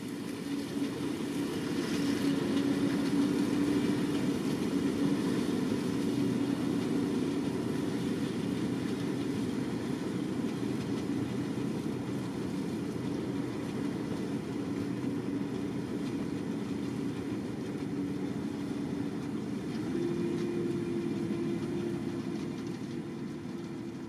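Grimme Ventor 4150 self-propelled potato harvester lifting potatoes, with a Fendt 936 Vario tractor and trailer running alongside. Engines and conveyors make a steady drone that slowly fades as the machines pull away, its pitch stepping up a little near the end.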